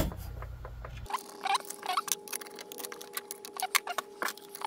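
Irregular light clicks and taps of metal hand tools and bolts, several a second, as fasteners are fitted to the intake elbow.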